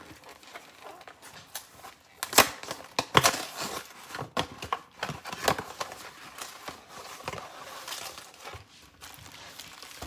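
Cardboard snack-cake box being torn open by hand: a run of sharp, irregular rips and crinkles of packaging, the loudest about two and three seconds in.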